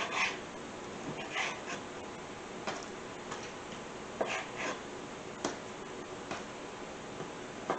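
Chef's knife slicing through raw chicken breast and knocking on a plastic cutting board: irregular single taps with short scraping slices between them.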